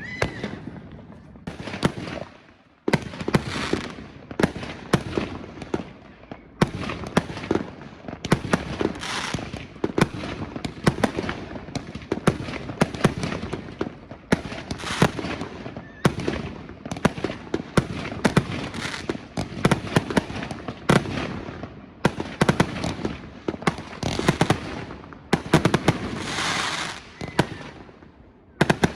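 Many fireworks going off at once: a dense run of sharp bangs and pops mixed with stretches of crackling, after a brief lull near the start.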